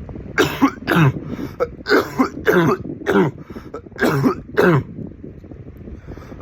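A man's harsh barking cough: seven coughs in short runs of two or three over about five seconds, each one dropping in pitch.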